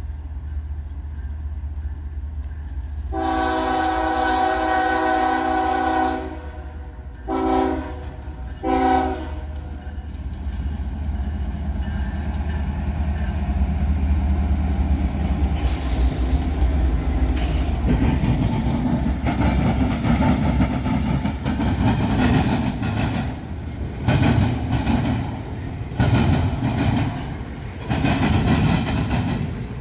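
Norfolk Southern intermodal freight train approaching over a low diesel rumble, sounding its air horn: one long blast about three seconds in, then two short ones. From about halfway through, the passing cars' wheels clatter and bang repeatedly over the rail crossing diamond.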